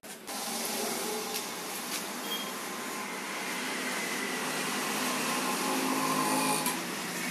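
Potter's wheel spinning with a steady mechanical whir as a wet clay pot is thrown on it; the sound starts abruptly just after the start.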